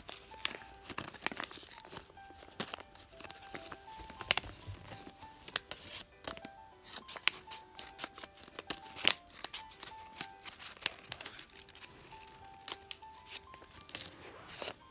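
Packaging being crinkled and torn open in many quick, irregular crackles, over a simple background melody of short notes.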